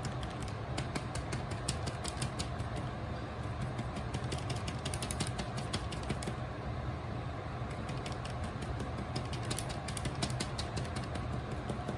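Paintbrush dabbing paint onto paper around a cut-out stencil: quick, irregular light taps of the bristles, thickest in the first half, over a steady low room hum.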